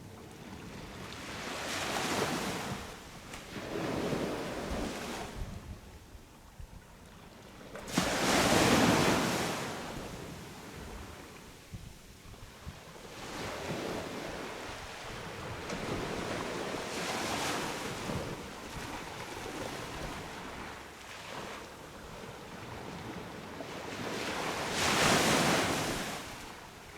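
Sea waves breaking on a beach and washing back, swelling and ebbing every few seconds; the loudest wave breaks suddenly about eight seconds in, and another swells up near the end.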